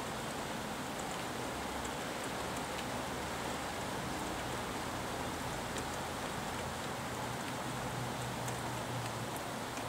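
Steady rain falling, with occasional sharp ticks of single drops striking something close by. Underneath runs a low, steady rumble of freeway traffic.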